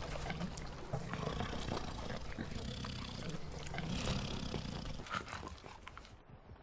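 A large animal growling in a low, continuous rumble that holds for about five seconds and then fades away.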